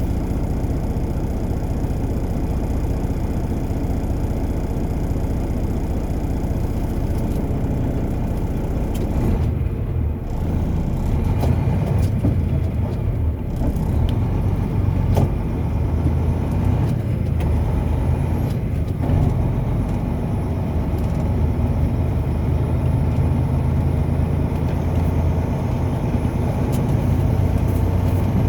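Car driving along, its engine and tyre noise making a steady low rumble, with a few faint clicks.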